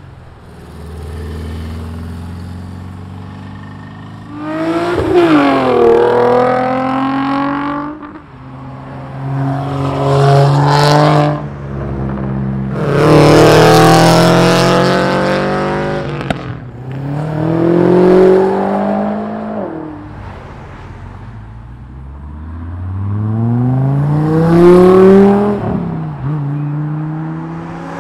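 Cars accelerating hard past one after another, about five in turn, each engine revving up in pitch through a gear or two, swelling loud as it passes and fading away.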